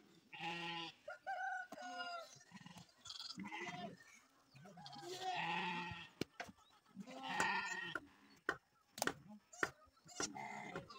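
Farm livestock bleating several times, with separate calls spread through the stretch. A few sharp clicks or knocks sound in the second half.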